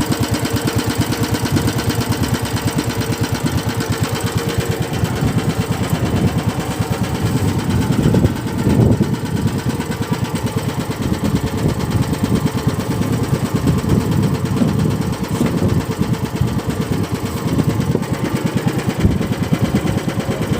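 Small fishing boat's engine running steadily with a fast, even firing beat, briefly louder about eight seconds in.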